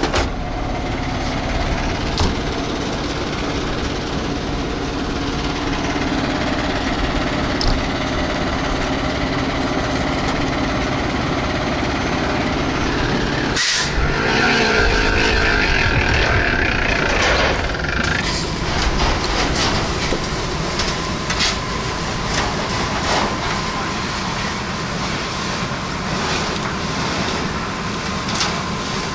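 A fire engine's diesel engine running steadily with a loud, continuous rumble, with scattered knocks and clanks over it in the later part.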